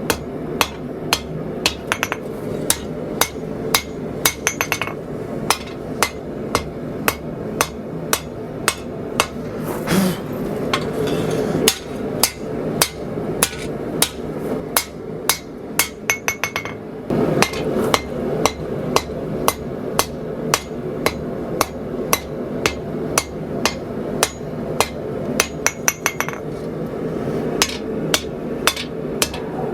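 Hand hammer blows on a blade of hot 80CrV2 steel resting on an anvil, forging the blade's preform, at roughly two sharp ringing strikes a second with a short pause partway through. A steady rushing noise runs underneath.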